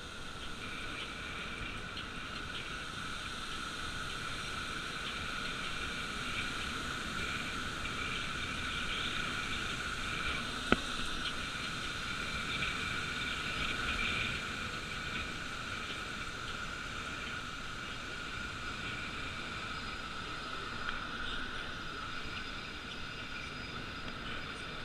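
Steady wind and road rush on a camera riding on a moving bicycle, with one sharp click about halfway through.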